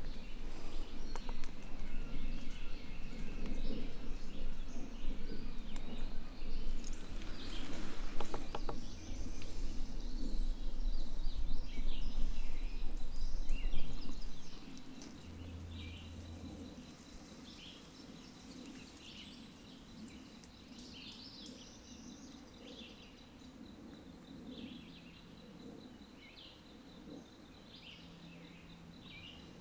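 Songbirds chirping in short, scattered calls in the woods. For about the first half a louder low rustling and handling noise covers them, and it stops suddenly; after that only the bird calls and a faint steady high hum remain.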